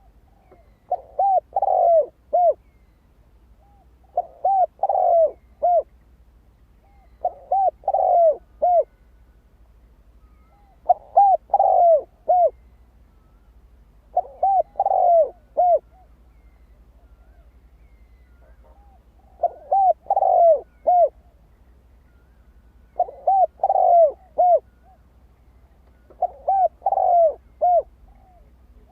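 Spotted dove cooing: eight short phrases of three or four quick, rounded coo notes, one about every three to four seconds, with a longer pause midway.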